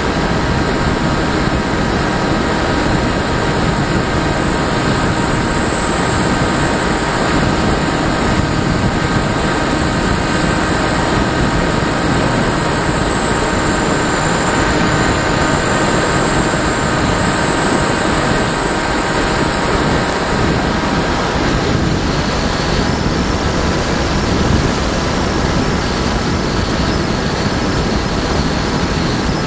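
Onboard sound of a radio-controlled motor glider in flight: a loud, steady rush of air with a high thin whine that drifts slowly in pitch and rises a little about two-thirds of the way through.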